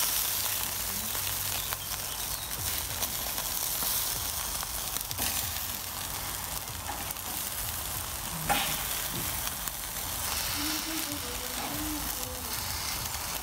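Chicken wings sizzling steadily on a charcoal barbecue grill, with a few sharp clicks of metal tongs as the wings are turned.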